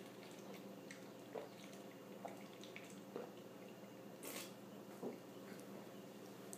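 Faint swallowing while drinking beer from a can, with soft gulps coming about once a second and a brief airy sound about four seconds in.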